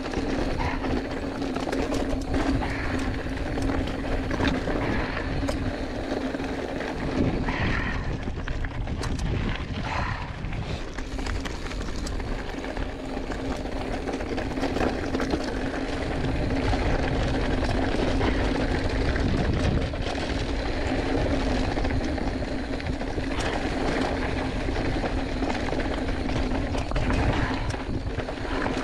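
Giant Fathom 2 hardtail mountain bike rolling fast over dry dirt and rocky trail, heard from a chest-mounted camera: knobby tyre noise and wind rush on the microphone, with a steady hum and scattered clicks and rattles from stones and the bike.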